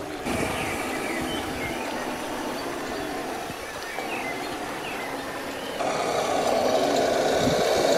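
Radio-controlled dump truck driving over dirt and gravel, its electric motor and gears running steadily. It gets louder about six seconds in.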